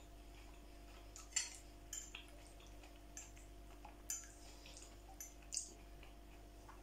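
Faint, scattered clicks and light scrapes of a metal fork against a plate during eating, about seven in all, the loudest about a second and a half in, over a faint steady hum.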